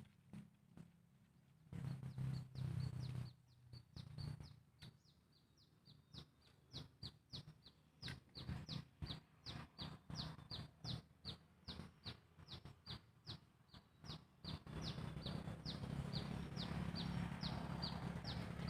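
A bird calling with a long run of short, high, falling chirps, about two to three a second, over a low hum that comes and goes and is loudest near the end.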